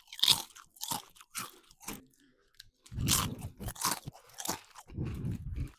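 Someone crunching and chewing potato chips, in irregular crunches with short pauses between.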